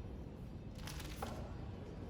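A few footsteps, with short clicks near the middle, over a steady low rumble.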